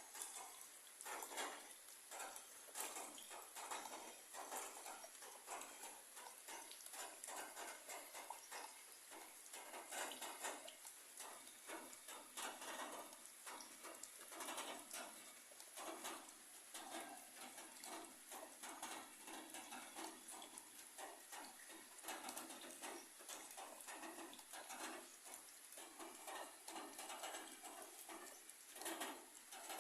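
Rain falling on broad papaya leaves: a faint, steady hiss full of irregular soft taps as drops strike the leaves.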